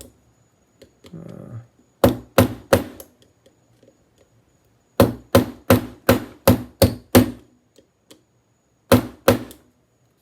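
Sharp, hard taps of a screwdriver knocking a Yale Superior euro lock cylinder on a concrete floor to drive off its stubborn cam assembly: three quick taps, then a run of about seven at roughly three a second, then two more near the end.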